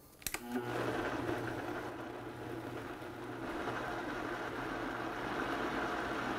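After a couple of clicks, a Vitamix blender starts about half a second in and runs steadily, pureeing fermented habaneros, beets and onion with a cup of brine into a still-thick mash.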